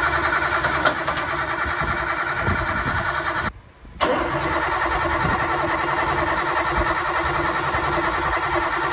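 Nissan Cefiro's engine cranking on the starter motor without firing, in two attempts with a short pause about three and a half seconds in. It will not start because its fuel pump wires have been disconnected at the relay, so the engine gets no fuel.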